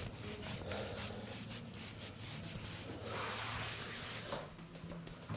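Hands rubbing over a person's back during a massage: a quick run of brushing strokes, with one longer, stronger stroke about three seconds in.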